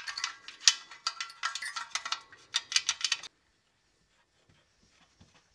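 Sealed-beam headlight and its metal trim parts clinking and rattling as they are handled and fitted together: a quick run of light clicks and clanks lasting about three seconds.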